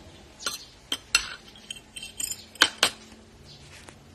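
Metal cutlery clinking against ceramic dishes: about six sharp clinks and taps, the two loudest close together about two and a half seconds in, some leaving a brief ring.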